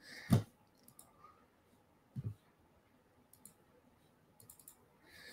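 Computer mouse clicks while browsing folders: one loud sharp click just after the start, then a few faint clicks later on, with a short low thump about two seconds in.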